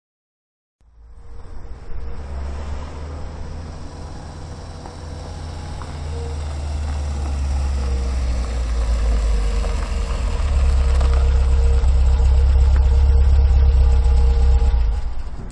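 Suzuki hatchback car driving slowly up the street and pulling in, its engine running with a low rumble that grows steadily louder as it nears, then cuts off sharply near the end.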